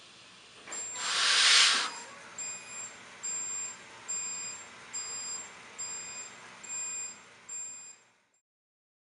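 Test chamber of an ANSTI breathing machine: a short, loud hiss of air about a second in, then a run of short electronic warning beeps, a little more than one a second, while the chamber lid lifts. The sound fades out near the end.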